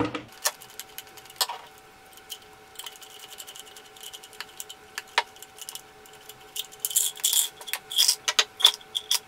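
Small clicks, taps and rattles of screws, a screwdriver and plastic parts being handled while a loudhailer's plastic handle is taken apart. The clicking grows quicker and busier near the end, with a faint steady hum underneath.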